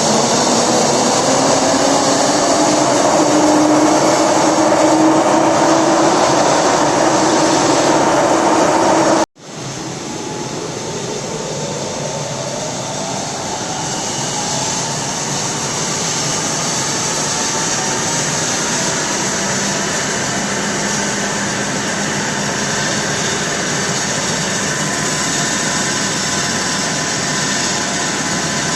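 Sedin CNC vertical lathe running with a steady mechanical noise and whine. About nine seconds in the sound cuts off for an instant and resumes, and a whine then rises slowly in pitch over several seconds before holding steady.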